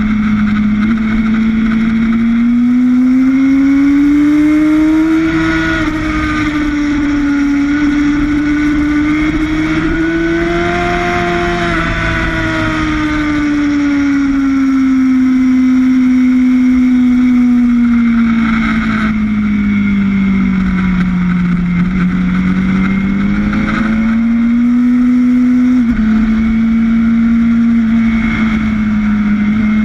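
Sportbike engine running at speed under wind rush, heard from an onboard camera, its pitch rising and falling slowly as the bike drives through and out of corners, with one sudden drop in pitch near the end.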